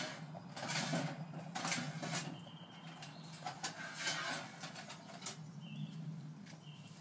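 Irregular clicks and knocks as the tin hatch of a small olive-oil-can wood stove is opened by a gloved hand, over a steady low hum. A few short high chirps come near the middle and the end.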